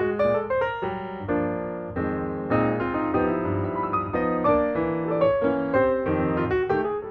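Background piano music: a steady flow of quick struck notes over chords and a low bass line.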